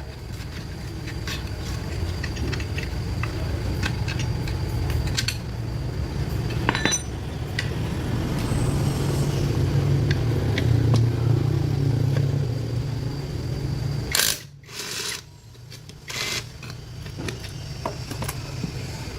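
A small motor or engine running with a steady low hum, loudest about two-thirds of the way through, with scattered clicks and knocks over it. It cuts off suddenly about fourteen seconds in.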